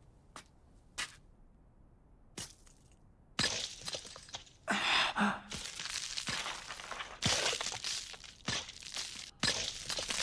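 Animated sound effect of Gaara's sand armor cracking and crumbling: a few separate sharp cracks, then, a little over three seconds in, a dense run of crackling and breaking as the shell splits and flakes away.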